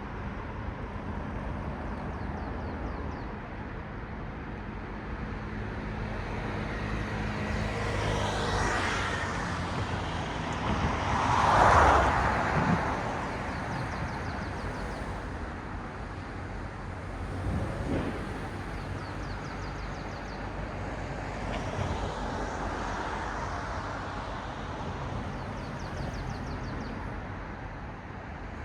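Cars passing one after another on a road over a steady traffic hum. Each swells and fades, and the loudest goes by a little before the middle.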